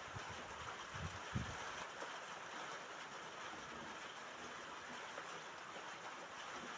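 Steady rain falling on a roof, a continuous even patter, with a couple of low thuds in the first second and a half.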